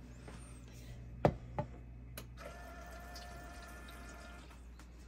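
Insignia portable ice maker running just after being switched on: water trickling and dripping inside it, with a low hum and two sharp clicks a little over a second in. A steady whine comes in about halfway through and stops shortly before the end.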